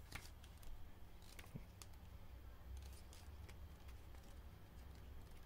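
Faint paper rustling and a few soft clicks as a folded instruction booklet is opened and its pages leafed through, over a steady low hum.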